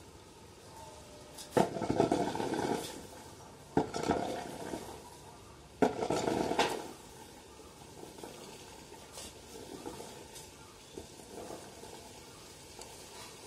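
Areca nuts clattering and rattling as a long-handled rake drags them across the ground while they are spread to dry. Three strokes about two seconds apart, each a sharp start and about a second of rattling, then lighter scattered rattles.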